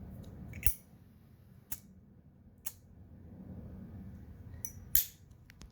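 Sharp metallic clicks as metal Zippo-type lighters are handled: about five short clacks, a second apart at first, the loudest about five seconds in.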